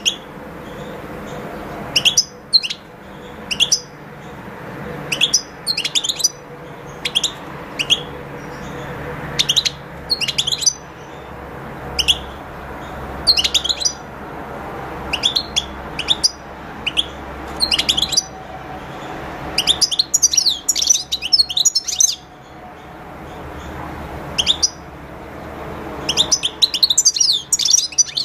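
European goldfinch giving short, high chirping calls every second or two, breaking into longer twittering song phrases about two-thirds of the way through and again near the end.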